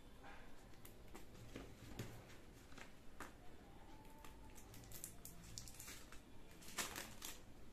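Faint scattered clicks and rustles of a camera's retail packaging being handled and opened, with a cluster of louder crinkles near the end.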